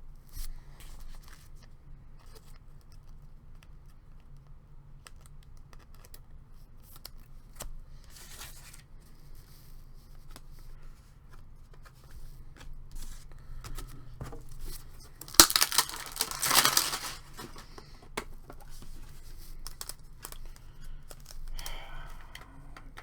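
Hockey card pack wrapper being torn open, loudest in a tearing stretch about fifteen seconds in, with scattered small clicks and rustles of packaging and cards being handled around it.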